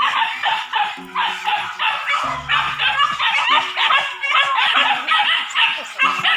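Several young hunting dogs barking and yelping without pause, their barks overlapping, excited at the sight of a wild boar.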